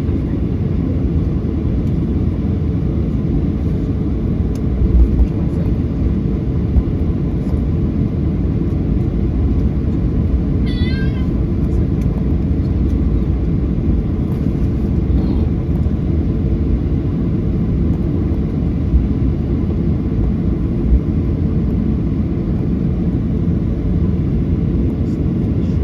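Steady low rumble of a Boeing 737-800's passenger cabin heard from a forward window seat, with the engines running. It is broken by a few short low bumps, and about 11 seconds in by one brief high, wavering squeal.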